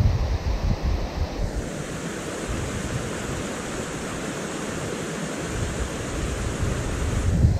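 River rapids rushing steadily, with wind buffeting the microphone in the first second or so and again near the end.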